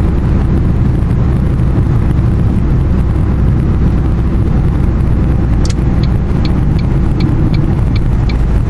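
Steady road and engine noise of a moving car, heard from inside the cabin. In the last few seconds a light, regular ticking comes in, about three ticks a second.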